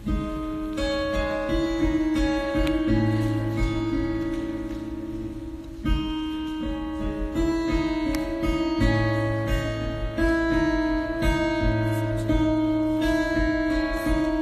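Acoustic guitar played solo, with picked chords ringing out in a steady melody and a low bass note sounding every few seconds.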